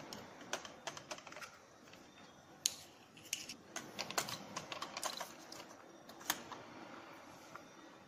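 Scattered light clicks and taps of a plastic wheeled toy robot being handled and turned over by hand, its plastic parts and wheels knocking, in irregular clusters.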